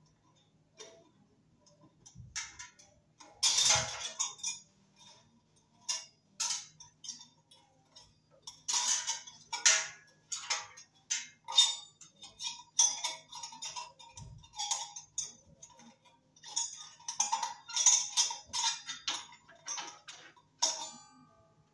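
Irregular clicks, clinks and short metallic rattles as a ceiling fan's metal motor housing and mounting hardware are handled and fitted overhead.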